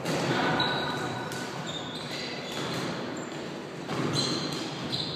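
Indoor floorball play: plastic sticks knocking against the ball and the floor, with short high squeaks of sports shoes on the court, all echoing in a large gym hall. The loudest knocks come at the very start and again about four seconds in.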